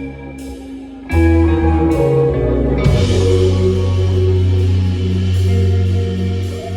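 Live rock band playing with guitar and drums: a softer held chord, then about a second in the full band comes in loud, with a cymbal crash a couple of seconds later and a loud sustained chord.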